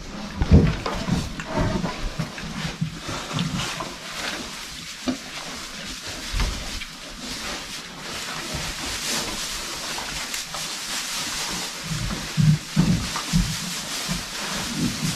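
Pigs grunting in short irregular bursts, with a rustling of hay through the middle.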